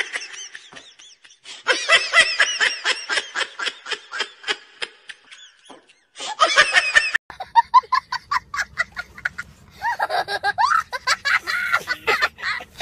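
People laughing in several bouts of quick, repeated ha sounds, with short pauses between the bouts.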